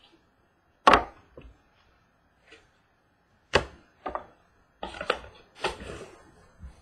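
Sharp knocks and clacks of a small trading-card box being handled and set down on a wooden tabletop. The loudest knock comes about a second in, two more follow a few seconds later, and a quick cluster of clacks comes near the end.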